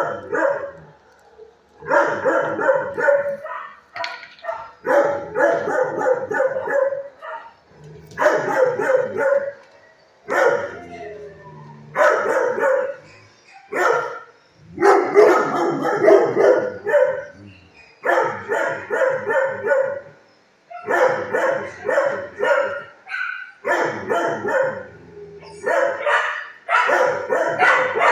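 Dogs in shelter kennels barking in rapid volleys, a new bout every second or two.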